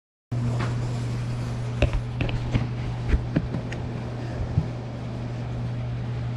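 A steady low mechanical hum, like a motor or fan running, with a few light clicks and knocks over it in the middle.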